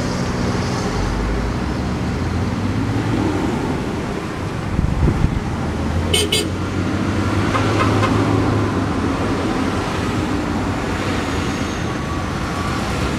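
Road traffic passing through a multi-lane intersection: cars, vans and pickups driving by in a steady rumble, swelling as a vehicle passes close about five seconds in. About six seconds in, two very short high toots sound, likely a passing driver's horn.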